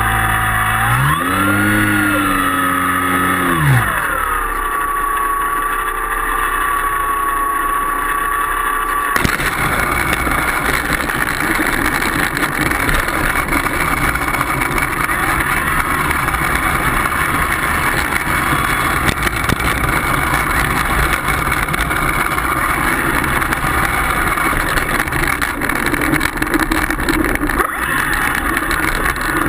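A plane's motor whining, its pitch rising and falling with the throttle for the first few seconds and then holding steady. About nine seconds in, the whine gives way suddenly to a steady rough rumble, with the wheels rolling over pavement.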